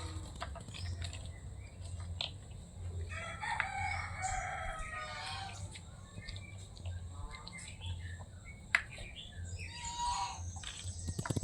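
A rooster crowing about three seconds in, with shorter chicken calls later on.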